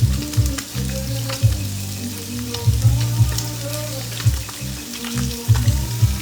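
Pieces of fish frying in hot olive oil in a pan: a steady sizzle with scattered sharp pops and crackles.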